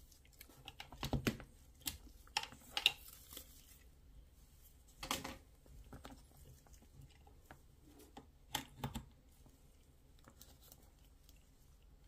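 Gloved hands handling a silicone charging cable with metal plugs: scattered clicks, rubbing and rustles in short clusters, about a second in, around five seconds and again near nine seconds.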